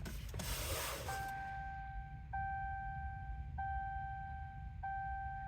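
Electronic warning chime in the cab of a Dodge Ram pickup that won't start: a steady tone that begins about a second in and is re-struck about every second and a quarter, after a brief rustle.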